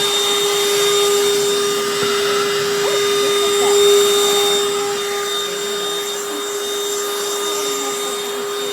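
BLACK+DECKER Dustbuster cordless handheld vacuum running steadily: a constant motor whine over the rush of air.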